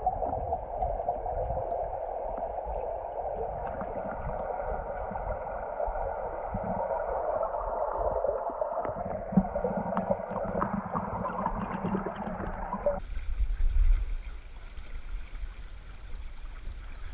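Mountain-river current rushing and gurgling, muffled as heard through an underwater camera among the riverbed stones, with a low hum joining partway through. About thirteen seconds in it cuts to the open-air sound of the fast current and wind on the microphone.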